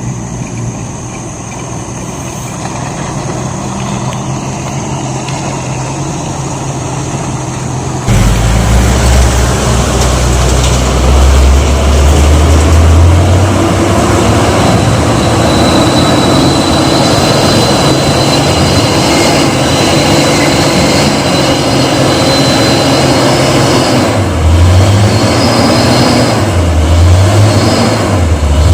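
Motor vehicle engines running on a broken, muddy road. About eight seconds in, a much louder low engine rumble cuts in, and near the end the engine revs up and down.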